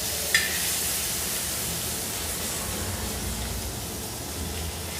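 Fish frying in well-heated oil in a pan: a steady sizzling hiss that eases slightly toward the end, with a short clink about a third of a second in.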